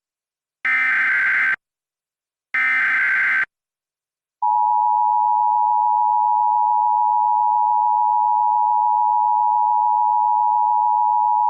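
Emergency Alert System SAME header: the last two of its three digital data bursts, each about a second long, with a second of silence after each. Then the steady EAS attention tone, near 1 kHz, starts and holds; it announces the tornado warning message that follows.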